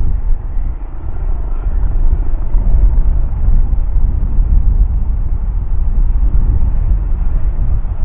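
Airbus EC135 helicopter flying past overhead: the steady low rumble of its main rotor and twin Pratt & Whitney PW206B turboshaft engines, loud and even throughout.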